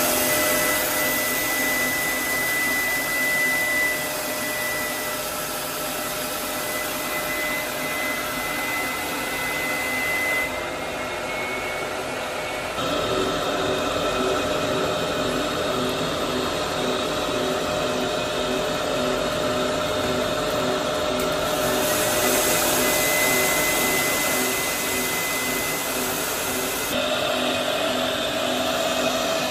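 Steady whirring and hum of pipe-factory machinery with a high, steady whine. The mix of tones shifts abruptly a few times.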